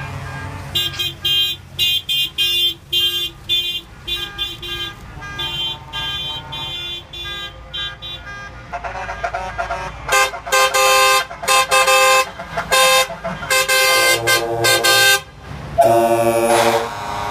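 Tour bus horns honking in a rapid run of short rhythmic toots, then louder, lower-pitched blasts about halfway through and one long blast with a wavering pitch near the end, over the low rumble of bus engines.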